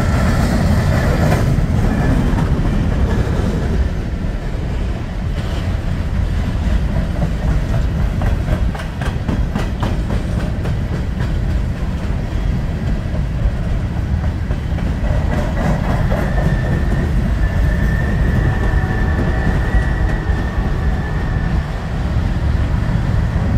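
Empty steel-wheeled coal gondolas of a freight train rolling past: a steady low rumble of wheels on rail with clacking over the rail joints. A thin high squeal joins in about two-thirds of the way through.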